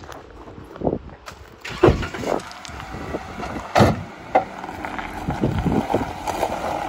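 Knocks and thumps of a person clambering over the spare tyre into the open back of a soft-top Jeep Wrangler, over the steady sound of a vehicle running.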